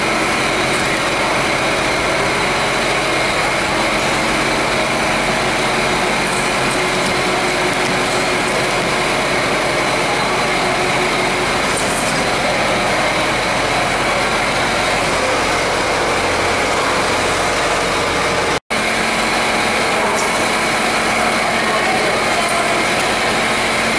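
Automatic bottling line running: conveyors, a bottle labeler and an eight-head pump filler make a loud, steady mechanical hum and hiss. The sound cuts out for an instant about three-quarters of the way through.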